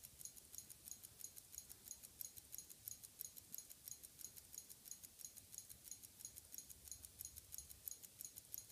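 Benrus 3061 hand-wound mechanical wristwatch ticking, faint and evenly paced at about five ticks a second.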